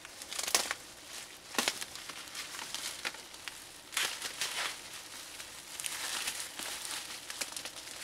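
Packing material crinkling and rustling as it is pulled off a shipped sewing machine during unpacking, in irregular bursts with sharper crackles about half a second, a second and a half, and four seconds in.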